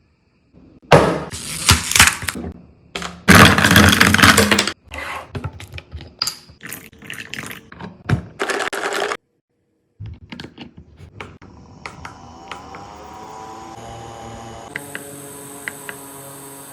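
Loud rustling and handling noises with clicks, then a small electric fan motor starts, its hum rising in pitch as it spins up and settling into a steady run, with a higher airy hiss joining about fifteen seconds in.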